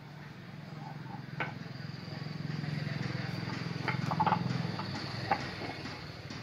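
Light metallic clicks and taps as the cast-iron body, caps and fittings of a hydraulic control valve block are handled, a few scattered strikes, the sharpest a little after the middle. Under them a low engine-like drone swells and then fades.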